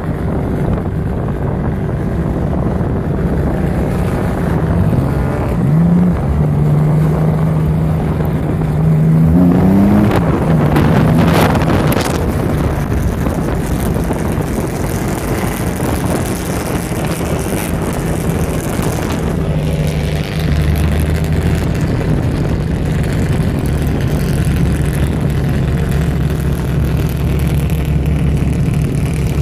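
A 1959 Devin D sports car's engine running at parade pace, heard from on board. Its note rises briefly twice, about five and ten seconds in, and a deeper engine note comes in about two-thirds of the way through.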